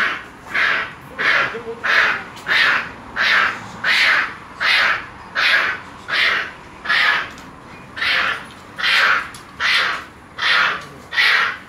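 An animal calling over and over, a harsh call repeated about every three quarters of a second.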